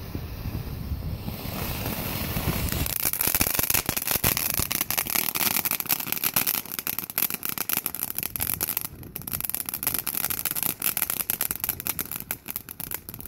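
Ground fountain firework spraying sparks, breaking into dense, rapid crackling about three seconds in. The crackling runs on, with a brief break about two-thirds of the way through.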